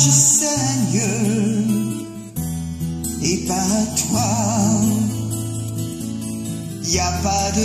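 Song with a woman singing held notes with a wide vibrato over a slow instrumental backing, with deep bass notes that change every second or two.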